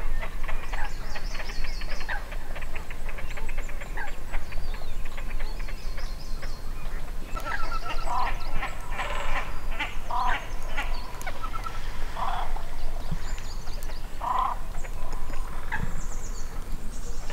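Waterbirds calling on a lake: a fast chattering trill, then a string of harsh, honking calls.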